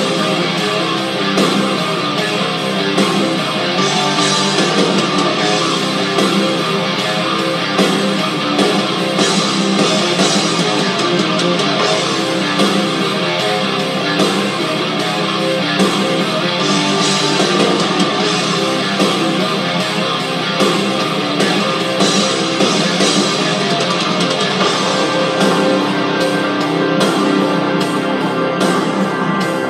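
Background music led by guitar, in a rock style.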